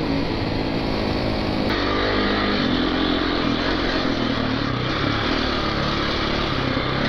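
Single-cylinder four-stroke dirt-bike engine running under way: a Yamaha WR400F on the road, then, after a cut about 1.7 s in, a KTM 450 EXC on a dirt track with its engine note rising and falling with the throttle.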